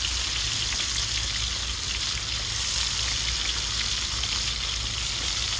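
Pieces of loitta (Bombay duck) fish frying in hot oil in a wide karai: a steady, even sizzle.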